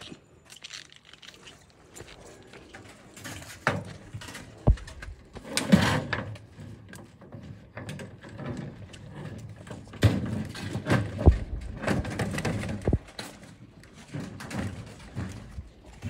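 Handling noise from a bundle of steel roofing sheets being tied with rope: irregular knocks, scrapes and rustles, with a few sharp thumps.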